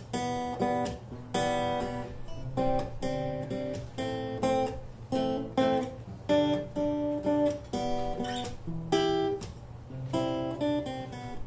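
Solo acoustic guitar strummed, chords ringing in a steady rhythm.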